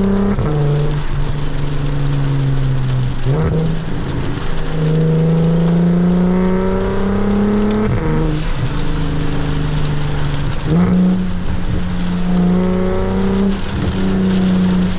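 Straight-piped single-turbo N54 BMW 335is engine pulling under moderate throttle. Its note climbs slowly in pitch and then drops at a shift, several times over, with a faint turbo whistle rising alongside. A steady hiss of heavy rain and wet road runs underneath.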